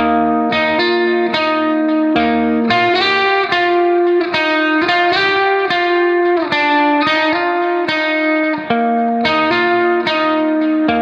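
Background music: a guitar melody of plucked notes in a steady rhythm.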